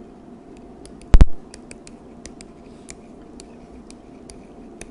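Light, irregular ticks of a stylus writing on a pen tablet, over faint steady room noise, with one loud sharp knock about a second in.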